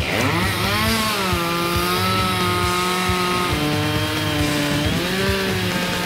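Chainsaw revving up to full throttle within the first second and then running at high, steady revs as it cuts through a large log; the pitch dips briefly about five seconds in and picks back up.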